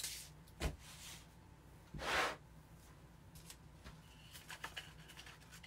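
Handling sounds of a plastic-backed adhesive stencil transfer sheet: a soft knock about half a second in, a brief louder rustle about two seconds in, then light crinkling and ticking as the sheet is handled and laid down.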